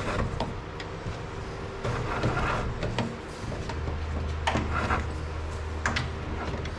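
Scattered knocks, clicks and a brief scrape of electrical cable being handled against wooden wall framing, with a low steady hum starting a little past halfway.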